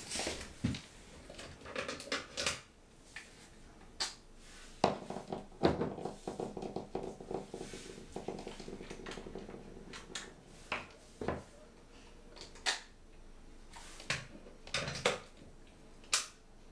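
Sharp plastic clicks and handling rustle of a plug-in air freshener being fitted with its scented refill and pushed into a wall socket.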